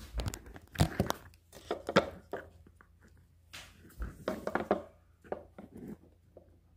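Handling noise: cloth and fingers rubbing and bumping against the camera's microphone as it is picked up, moved and set down, an irregular run of rustles and knocks with a few louder thumps, the loudest about a second in.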